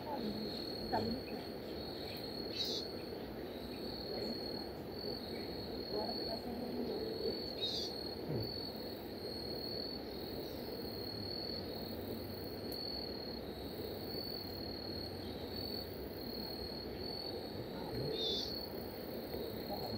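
Insects chirring in a steady, evenly pulsing high trill, over an even low hiss of outdoor background, with a few short higher chirps now and then.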